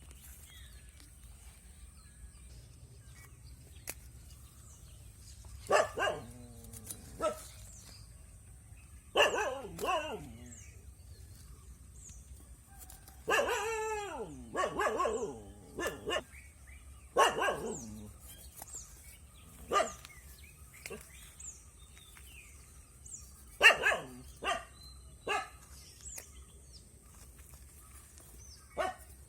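A dog barking: single barks and short runs of barks, scattered and uneven in spacing.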